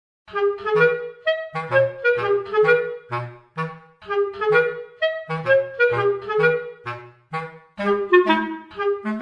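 Background music: a light, bouncy tune of short, quick notes over a bass line, starting after a brief moment of silence.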